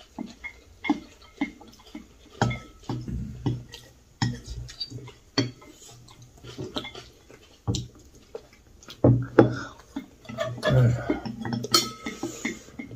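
Chopsticks and cutlery clicking and clinking against ceramic bowls and plates during a meal, in many irregular short knocks.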